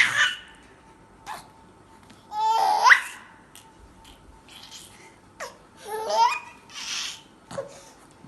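A baby's high-pitched squeals and laughs in short bursts, about five of them with pauses between.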